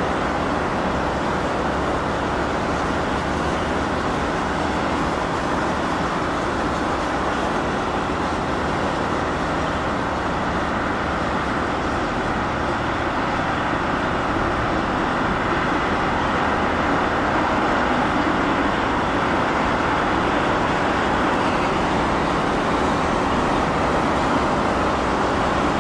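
Steady distant outdoor roar with no distinct events, growing slightly louder about two-thirds of the way through.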